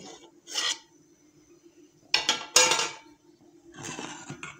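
A steel spoon clinking and scraping against a pot of milky tea as it is stirred, in a few short bursts, the loudest a little past the middle. A faint steady hum runs underneath.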